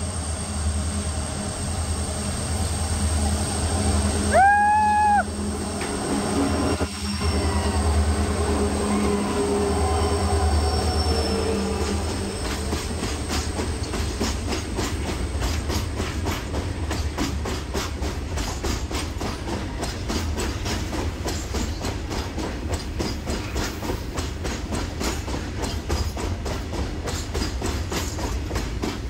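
Freight train passing close by: the locomotive's heavy low rumble with one horn blast of about a second some four seconds in, then the rapid, steady clatter of the goods wagons' wheels over the rail joints as the long rake rolls past.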